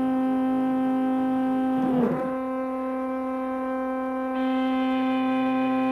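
Large stepper motors, driven by 6.5 A stepper drivers from a homemade GRBL controller, giving a steady singing hum with a clear pitch. The tone wavers briefly about two seconds in and turns brighter about four and a half seconds in.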